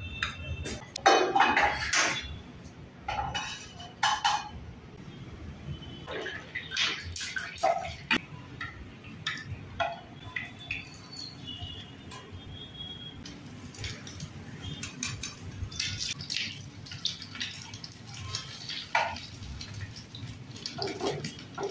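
Metal kitchen utensils clinking and scraping: a spoon against a small steel bowl, then a spoon and metal tongs knocking and scraping in a frying pan on a gas burner. The clinks come irregularly, loudest about a second in and again around seven seconds in.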